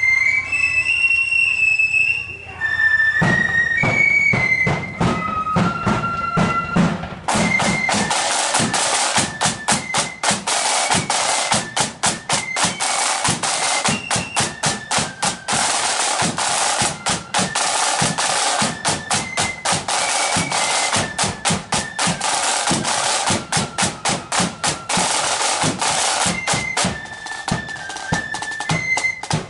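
Marching flute band playing: flutes carry the melody, side drums come in about three seconds in, and from about seven seconds the snare drums play a fast, dense rhythm under the flutes.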